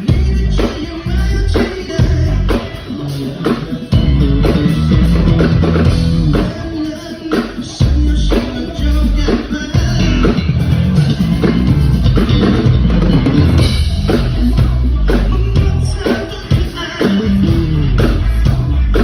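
Band playing at a sound check: a drum kit with kick and snare hits under a Fodera Emperor Deluxe five-string electric bass.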